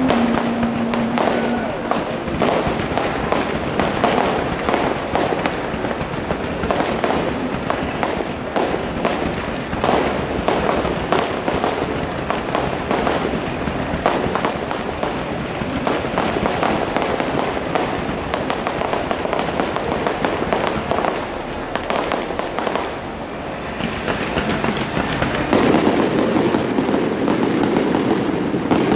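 Aerial fireworks display: a continuous barrage of launches and bursting shells with crackling. The barrage grows denser and louder a few seconds before the end.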